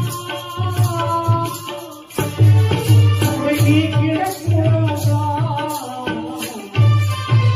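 Tamil qawwali performed live: a man singing into a microphone over tabla drumming, whose deep bass thuds keep a steady rhythm, and an electronic keyboard playing along.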